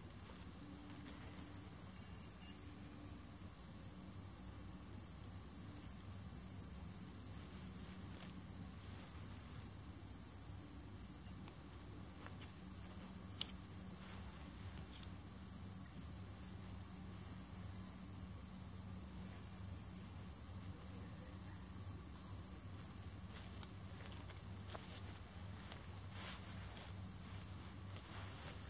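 Steady, high-pitched chorus of insects, with a few short knocks about two and a half seconds in and again around eleven and thirteen seconds in.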